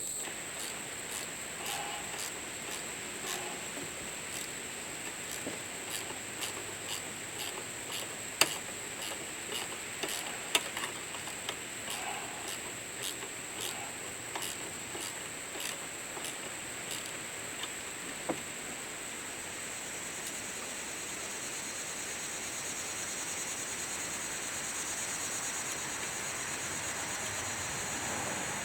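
Ratchet wrench with a 10 mm socket working a bolt on the belt tensioner or alternator mount: a run of light metallic clicks, about two a second, with a few louder knocks, stopping after about two-thirds of the way through.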